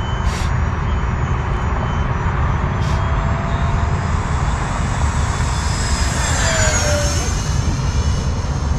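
E-flite F-15 Eagle RC jet's electric ducted fans whining in flight, with a heavy low rumble throughout; its pitch falls as it passes about six to seven seconds in. The owner notices an unusual noise from the jet, its cause unknown.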